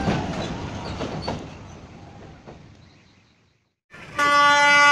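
Rumble and clatter of a passenger train crossing a steel truss bridge, fading away over about three seconds. After a brief cut, a diesel locomotive's horn starts a loud, steady blast about four seconds in.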